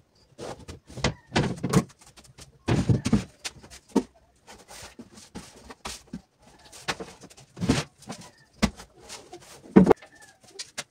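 Furniture being dusted with a cloth: irregular knocks, thumps and rubbing against wardrobe panels.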